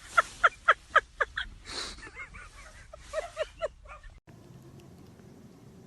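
An animal giving a rapid run of short, high calls, about four a second, then a brief pause and a few more. The sound cuts off suddenly about four seconds in, leaving faint background noise.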